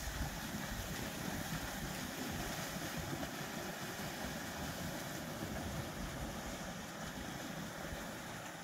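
Wind buffeting the microphone: a steady, fluttering low rumble over a soft hiss.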